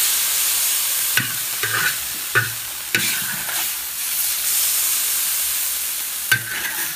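Leftover sauce sizzling in a large wok over high heat, with steam coming off it. A metal spatula scrapes and knocks against the wok several times.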